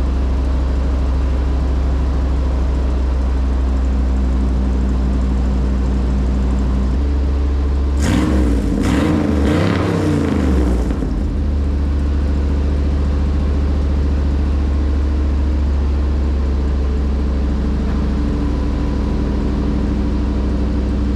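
454 big-block Chevy V8 idling steadily through its exhaust. About eight seconds in it is revved in a short burst of throttle blips, then drops back to a steady idle about three seconds later.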